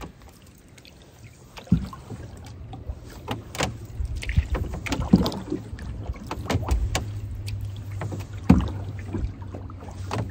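Canoe paddle strokes: the blade dipping and pulling through the water with splashes and drips, at an irregular pace, with a few sharp knocks, the loudest about two seconds in and again near the end. A low steady rumble sits underneath from a few seconds in.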